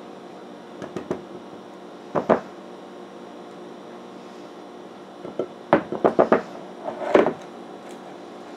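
Silicone spatula tapping and scraping against a glass mixing bowl to get the last batter out: a few separate taps in the first half, then a quick run of taps and a final knock in the second half.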